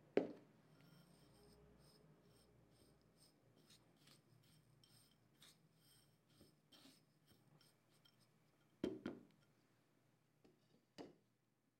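A spoon stirring ground peanut powder and sugar in a ceramic bowl: soft, quick gritty scrapes. There is a sharp knock just after the start and a few lighter knocks near the end.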